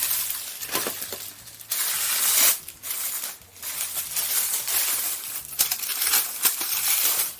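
Plastic packaging rustling and crinkling in uneven stretches while small hard plastic parts are handled, with light clicks and clinks among them.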